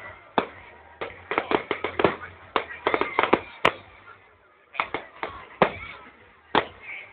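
Aerial fireworks shells bursting, a rapid uneven run of sharp bangs and crackles with a short lull about four seconds in, recorded through a phone's microphone.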